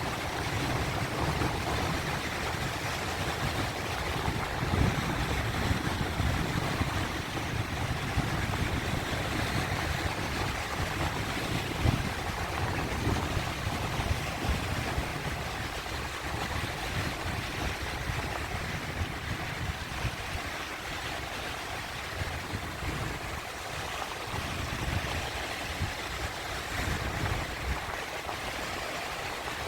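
Sea waves washing in a steady rush of surf, with irregular low rumbling surges that ease off after about the middle.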